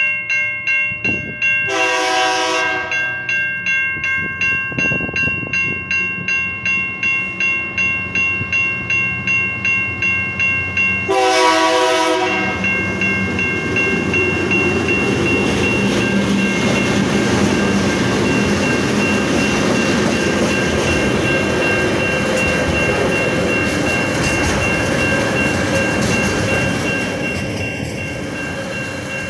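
A railway level-crossing bell clanging in a steady rhythm, about twice a second. A Tasrail freight train's horn sounds twice, about 2 seconds in and about 11 seconds in. From about 12 seconds the train rumbles past the crossing with its wagons, easing off near the end.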